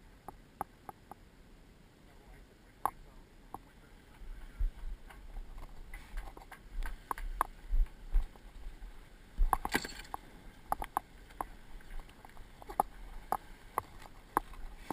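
Sailboat under way: irregular sharp clicks and knocks over a low rumble of wind on the microphone. The rumble is strongest from about four to ten seconds in.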